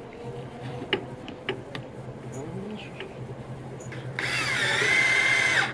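Cordless drill driving into the edge of a structural insulated panel: after a few light clicks and knocks, the drill's motor whine starts about four seconds in. Its pitch dips, then holds steady for about a second and a half, and it stops near the end.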